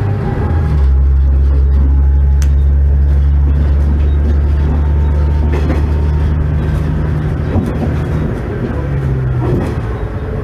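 Diesel engine of a Tenryu Hamanako Railroad TH9200 railcar running steadily under power, heard from inside the car. A low drone sets in about a second in and shifts in pitch near the end.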